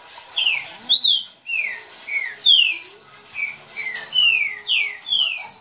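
Caged pixarro (green-winged saltator) singing its boiadeira-style song: a run of loud, clear whistled notes, each sliding down in pitch, about two notes a second.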